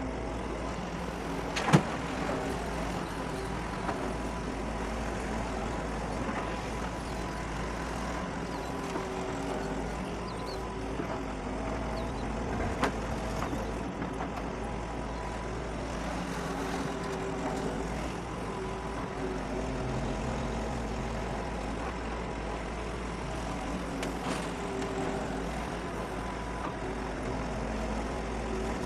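Doosan DX140 excavator's diesel engine running steadily under hydraulic load while loading soil, its note rising and falling a little as the machine works. A sharp clank comes about two seconds in, and a lighter one near the middle.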